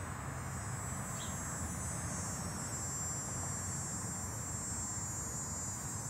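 Insects singing in one steady, high-pitched drone, with a low steady hum beneath it.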